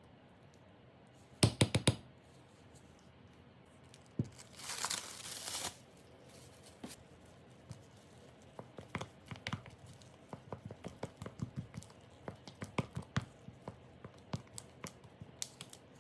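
Kitchen handling sounds: a quick loud clatter, then a brief ripping rustle of packaging about five seconds in, followed by a long run of light taps and clicks.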